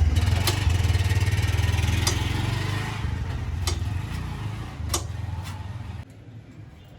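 A motorcycle engine idling with a steady low, pulsing rumble, a few sharp clicks over it. The sound fades a little and then drops off abruptly about six seconds in.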